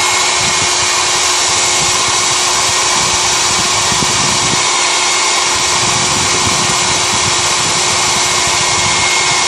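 Handheld hair dryer (Föhn) running steadily: a loud, even rush of air with a faint steady whine from its fan motor.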